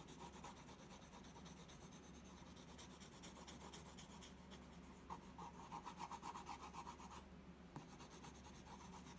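Colored pencil shading on sketchbook paper: fast, light back-and-forth strokes, faint, thinning out about seven seconds in.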